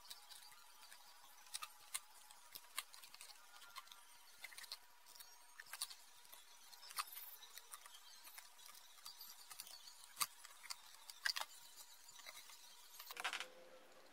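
Faint, scattered clicks and taps of a screwdriver and pliers on small screws and nuts against a thin plastic box as speakers are screwed in, with a brief rustle near the end.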